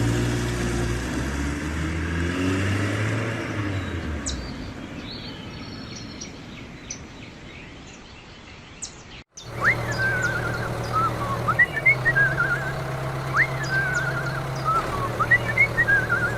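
An engine running with a wavering pitch, fading out over the first four seconds. After a sudden cut, birds chirp repeatedly over a steady low hum that breaks off and resumes a few times.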